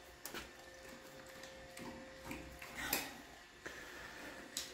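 A few faint clicks of a metal telescoping drawer slide being handled and fitted onto the side of a wardrobe drawer, the clearest about three seconds in.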